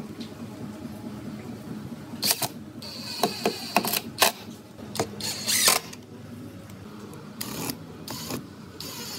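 Cordless impact driver driving screws through webbing straps into a wooden chair frame, in short stop-start bursts: a cluster from about two seconds in to nearly six seconds, and a second, shorter run near the end.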